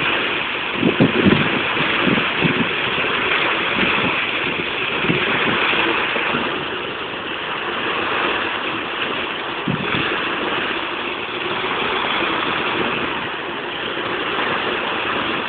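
Water spilling over the steps of a stepped cascade fountain: a steady rushing splash. A few short low thumps come in the first few seconds and once more near the middle.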